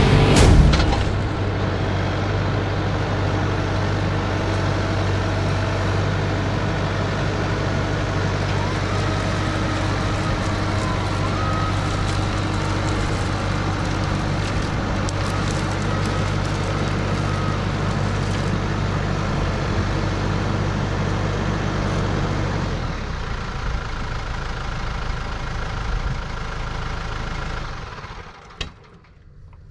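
Case IH 75C tractor engine running steadily at a fairly constant speed. The sound drops to a quieter level about 23 seconds in and fades further near the end.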